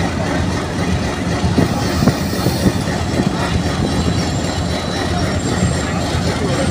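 Pakistan Railways passenger coaches rolling past at low speed, their steel wheels clacking irregularly over the rail joints over a steady rumble, with a faint high wheel squeal.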